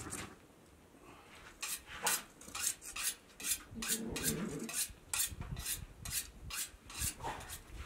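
Hand sheep shears being worked: quick, sharp metallic scraping strokes, about three a second, starting about a second and a half in.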